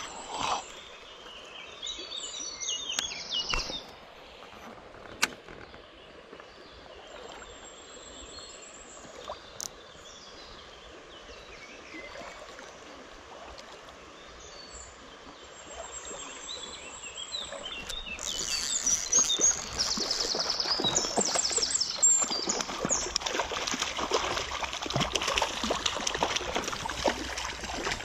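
Creek water running with birds chirping and a few sharp clicks early on. About two-thirds of the way in, loud, choppy splashing starts: a hooked trout thrashing at the surface.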